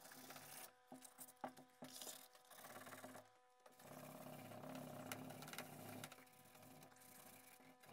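Faint scratchy rasp of a perforated sanding disc rubbed by hand back and forth over the steel flat of a cleaver blade, after a few light handling clicks and taps in the first couple of seconds.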